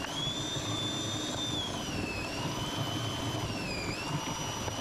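Electric food processor running steadily with a high motor whine, grating potatoes finely with its chopping blade and grating disc. The whine dips briefly in pitch twice.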